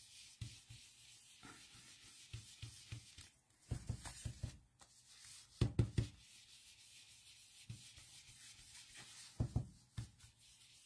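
Ink blending brush dabbed and rubbed on card stock over scratch paper: soft quick taps in three short clusters, about four and six seconds in and again near the end.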